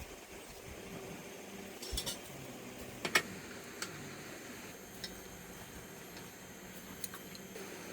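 A few scattered sharp clinks and knocks, like hard objects being handled, the loudest about three seconds in, over a steady faint background hum.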